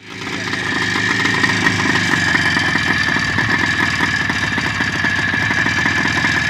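Jawa 634 two-stroke twin-cylinder motorcycle engine idling steadily, freshly rebuilt after a major overhaul, with a steady high whine over the engine note.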